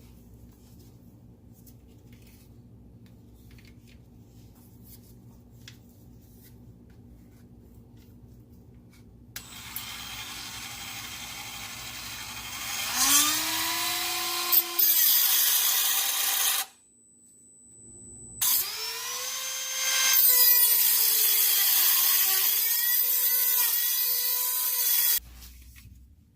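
Dremel rotary tool with a cutoff wheel cutting into a bolt on the exhaust Y-pipe. From about nine seconds in there is a gritty grinding hiss with a high motor whine. The whine rises as the tool spins up and sags and wavers as the wheel bites. It stops briefly around seventeen seconds, runs again, and cuts off near the end.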